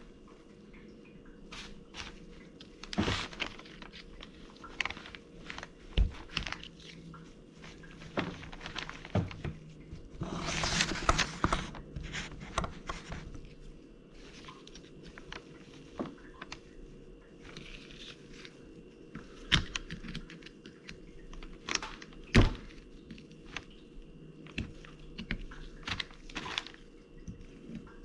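Hand work on a CV axle being taken apart: scattered clicks, taps and a few sharp metallic knocks, with a rustling scrape about ten seconds in.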